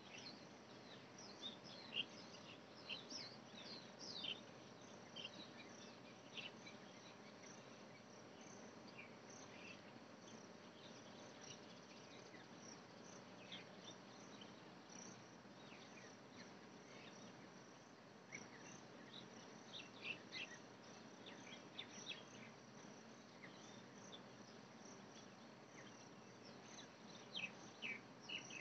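Faint insects calling in a steady high trill, with clusters of short high chirps now and then over a low, even background hum.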